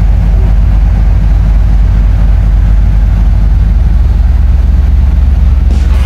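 Large car ferry's engines and exhaust funnel droning: a loud, steady low hum on the open upper deck.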